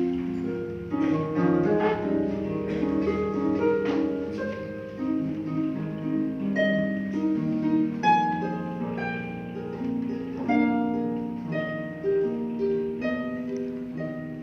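Solo pedal harp playing: plucked notes ringing over one another in a flowing line, with accented chords about every two seconds.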